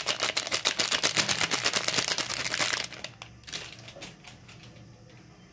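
Plastic spice packet crinkling as garam masala is shaken out of it: a fast run of crackly clicks for about three seconds that then dies away.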